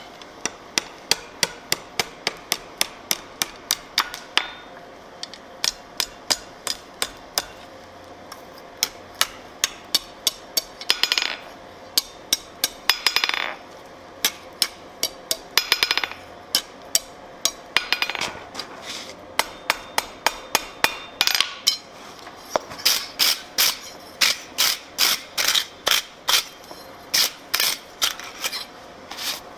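Blacksmith's hand hammer striking hot steel on an anvil, in quick runs of about three blows a second with short pauses between runs. A few longer, noisier sounds come between the runs partway through.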